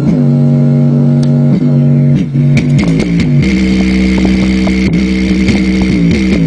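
Bass-heavy music played loud through a Logitech computer subwoofer in a bass test, heard close to the driver and port: deep bass notes stepping in pitch. From about three and a half seconds in, a harsh noisy buzz rides over the bass.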